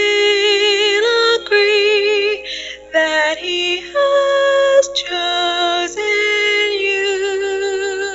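A woman's solo singing voice in a slow Christian wedding song, holding several long notes in turn with a wide vibrato.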